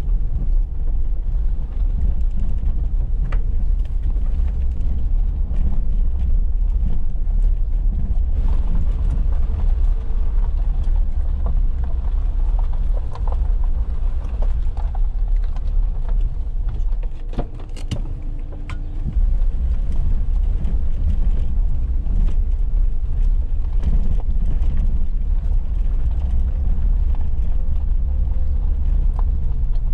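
Suzuki Jimny driving along a rough off-road lane: steady, loud low engine and road rumble with scattered knocks and rattles, dropping away for a couple of seconds a little past halfway and then picking up again sharply.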